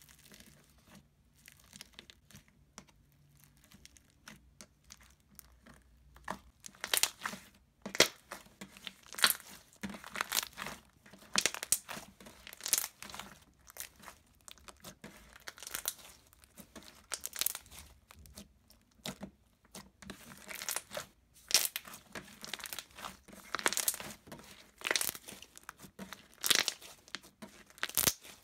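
Hands squeezing and stretching a glossy white-glue slime packed with foam chunks and foam beads, giving irregular sharp crackles and clicks. They are faint at first and much louder from about six or seven seconds in.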